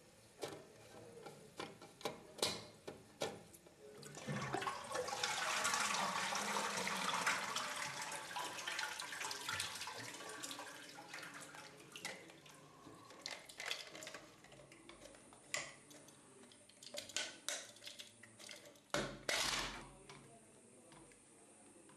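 Water rushing and splashing in a Jacob Delafon toilet cistern for several seconds as the flush valve is taken out. Sharp clicks and knocks of plastic cistern parts being handled come before and after the rush, with a short louder clatter near the end.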